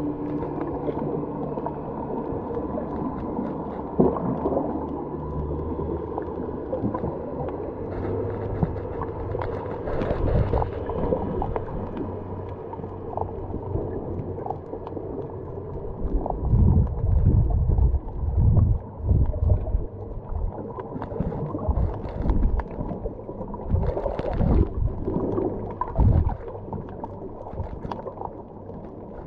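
Muffled underwater sound picked up by a camera submerged while snorkelling: a steady low rumble of moving water, with several loud low surges in the second half.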